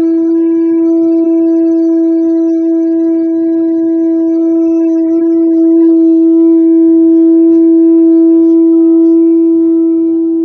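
Carved Tibetan conch shell horn blown in one long, steady, unbroken note.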